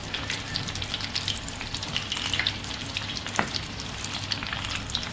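Breadcrumb-coated chicken pieces deep-frying in hot oil: a steady sizzle full of small crackling pops, with one sharper click about three and a half seconds in.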